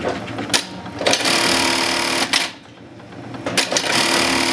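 Atlas USA AT-1850 42-stitch bartack sewing machine running through two short bartack cycles. Each run lasts about a second and a half, the first starting about a second in and the second near the end, with a quieter pause between them and a couple of clicks before the first.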